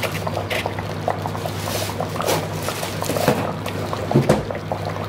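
Goat-trotter paya curry boiling in an open steel pressure cooker: the thick liquid bubbles with many small irregular pops, a few louder ones, over a steady low hum.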